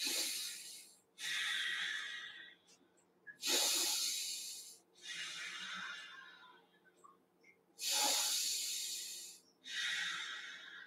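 Slow, deep breathing of a person holding a qigong standing posture: six long breaths in and out, each one to one and a half seconds, with short pauses between them.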